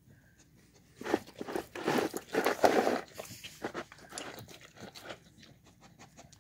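A dog eating out of a bowl, crunching and chewing its food. A dense run of crunches starts about a second in and lasts about two seconds, then tails off into lighter chewing.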